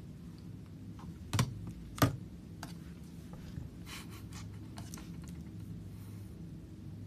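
Light tapping and clicking, with two sharper knocks about a second and a half and two seconds in and scattered softer clicks after, like handling or typing on a device close to the microphone, over a low steady hum.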